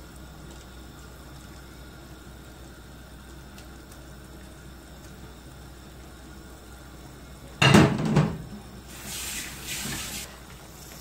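Low steady background, then about three-quarters of the way through a sudden loud clatter of a steel cooking pot being handled on the stove, followed by about a second of rushing noise like water running from a tap.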